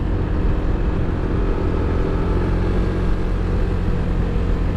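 Motorcycle running at a steady cruising speed, its engine hum mixed with wind and road noise buffeting a helmet-mounted microphone.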